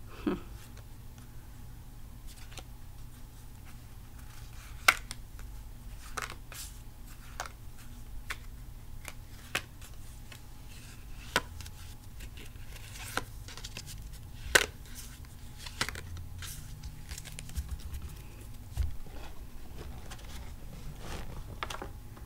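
A stack of paper trading cards being handled in the hands: sharp, irregular clicks and snaps of the cards, the two loudest about five and fifteen seconds in. A steady low background hum runs underneath.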